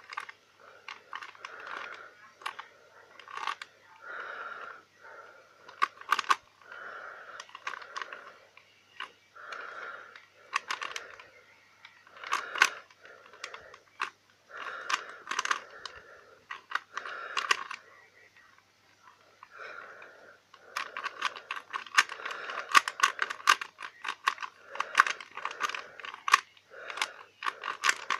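Rubik's cube being turned by hand: short bursts of clicking, scraping plastic layer turns with brief pauses between. In the last several seconds the turning becomes fast and nearly continuous.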